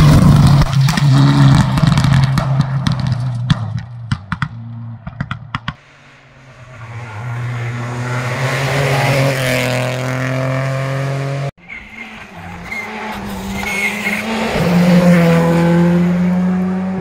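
Rally cars at full throttle in quick succession. A Mitsubishi Lancer Evolution X rally car passes and fades away with a run of sharp cracks. Then another rally car's engine note rises as it comes closer, and after an abrupt cut a third engine builds again.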